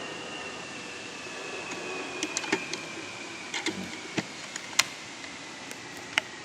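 Scattered light clicks and taps of plastic and metal parts being handled as a car's fog light assembly and its clip are worked back into place.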